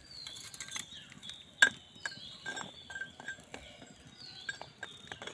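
Light clinks of a spoon against a steel pot as fried gaja pieces are moved about in sugar syrup, with one sharp click about a second and a half in.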